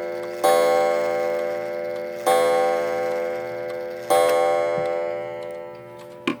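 Regulator clock's gong struck by its hammer three times, about two seconds apart, each stroke ringing on and fading slowly; the strike is being set off by hand.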